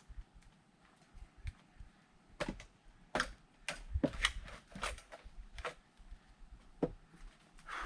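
Light, irregular wooden knocks and clatters from split firewood and logs being handled between axe strokes, about a dozen in all, bunched in the middle of the stretch.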